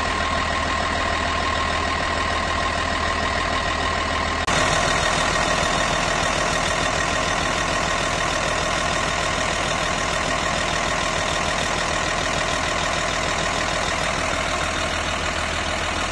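Caterpillar 143H motor grader's diesel engine idling steadily, heard up close in the open engine compartment, with a steady whine over the engine's running. The sound steps up slightly in level about four and a half seconds in.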